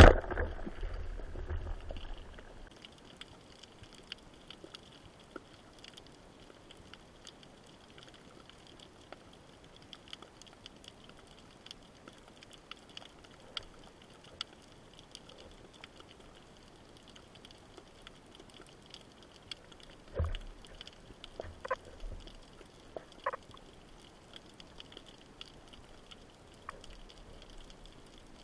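Underwater sea ambience heard through a camera housing: a steady faint crackle of many tiny clicks, typical of snapping shrimp. A sharp bang at the very start, typical of a speargun firing, dies away in a low rumble over the next two seconds. A few low knocks and short sounds come about two-thirds of the way through.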